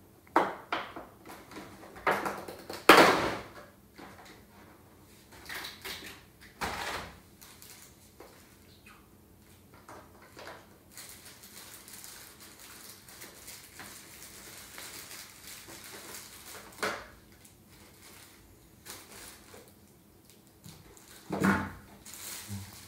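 Clear plastic blister tray and plastic-bagged figure parts being handled and lifted out: irregular crinkling and crackling of plastic with small clicks. The loudest crinkle comes about three seconds in, another near the end.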